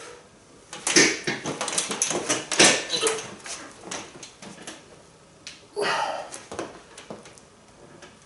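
Heavy 30 kg hex dumbbells being hoisted to the shoulders and pressed overhead, with a run of sharp knocks and breaths through the first few seconds. A forceful exhale or grunt of effort comes about six seconds in.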